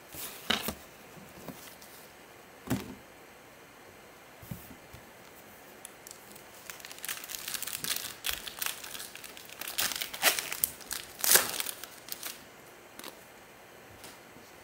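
Crinkling and tearing of a trading-card pack wrapper as gloved hands open it and handle the cards, in scattered crackles and clicks. The crinkling is densest in the second half, loudest about eleven seconds in.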